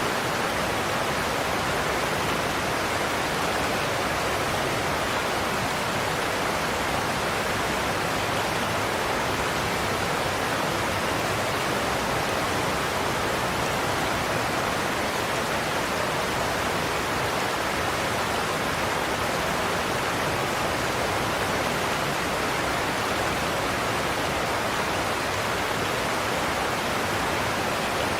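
Godafoss waterfall: a steady, unbroken rush of water pouring over the falls.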